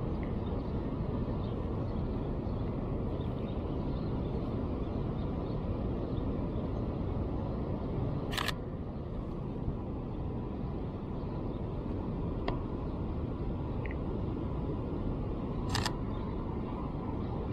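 Camera shutter clicking twice, about eight seconds in and again near the end, over a steady low rumble of city traffic.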